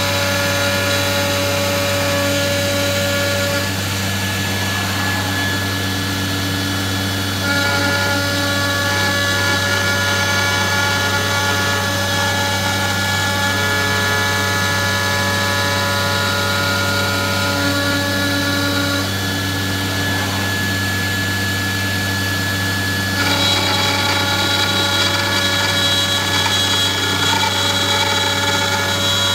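CNC router cutting a wood sheet: a steady spindle whine over a low machine hum. The mix of tones shifts every several seconds as the cut moves, and it gets louder about a quarter of the way in and again near the end.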